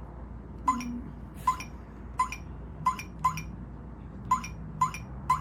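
Sifely smart lock's touchscreen keypad beeping once for each key pressed as a passcode is entered: eight short beeps at an uneven pace.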